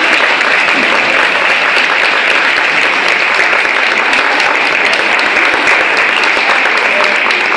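Audience applauding, a loud, steady clatter of many hands clapping.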